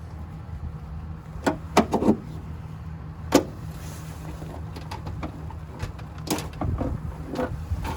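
Sharp clicks and knocks of the hood release cable and its plastic retaining clips being pried loose and handled, a quick cluster about a second and a half in, one loud snap near the middle and more scattered knocks near the end, over a steady low hum.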